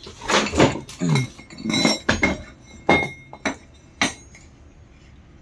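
Metal parts of a Wilden air-operated diaphragm pump clinking and knocking together as they are handled during disassembly: a run of sharp clinks, some with a short metallic ring, ending about four seconds in.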